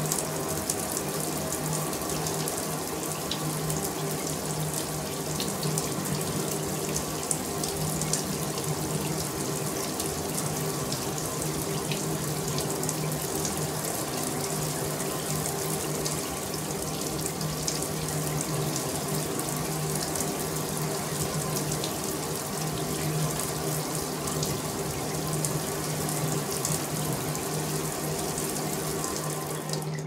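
Shower faucet running steadily, water pouring in an even, unbroken stream, with a faint steady hum underneath.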